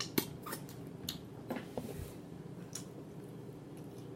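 A person chewing food close to the microphone, with wet mouth smacks and short clicks coming irregularly, several to the second at times.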